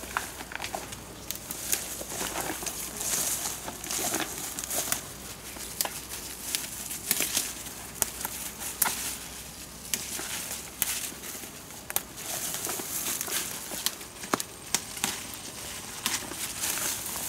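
Leaves rustling and leaf stems snapping as leaves are picked by hand from a leafy sapling: a run of irregular crackles and snaps.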